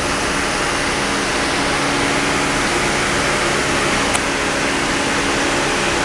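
Electric cooling fan running steadily, a continuous rush of air with a low motor hum, cooling the lamp-heated load of a temperature-control kit.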